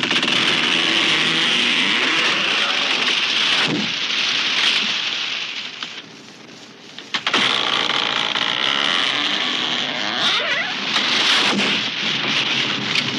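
A tree cracking and crashing down: a long rush of breaking branches and leaves that dies away, then about seven seconds in a fresh burst of sharp cracks and a second long crash.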